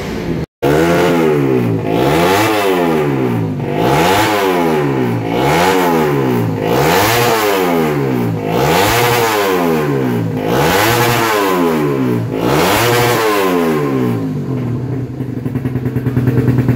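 Honda underbone road-race motorcycle engine revved up and down over and over, about once every two seconds, then settling back to a steady idle near the end.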